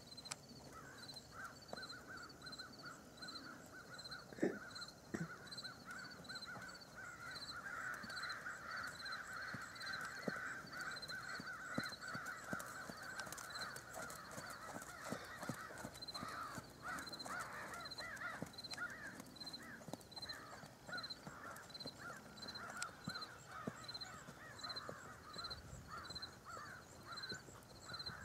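Crows cawing, a steady jumble of repeated calls that is busiest through the middle. A faint high chirp repeats a little over once a second, and a single sharp knock sounds about four seconds in.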